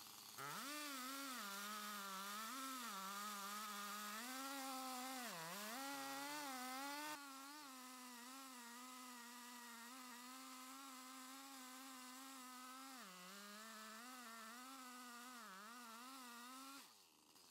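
Stihl MS 880 chainsaw's single-cylinder two-stroke engine running at full throttle while ripping a red oak log lengthwise in a chainsaw mill. The pitch sags and recovers again and again as the cut loads the saw. Near the end the engine falls away as the throttle is released.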